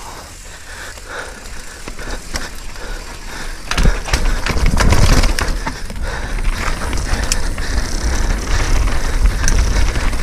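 Mountain bike riding down a rough trail: tyres crunching over dirt and rock, with the chain and frame rattling and knocking. About four seconds in, the rattling thickens and a low wind rumble on the microphone sets in as the bike picks up speed.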